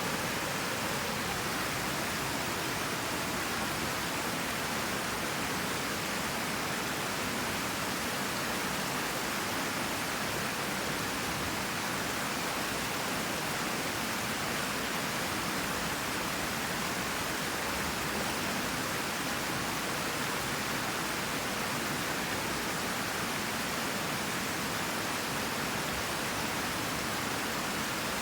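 Creek water rushing over rocks: a steady, unbroken rush.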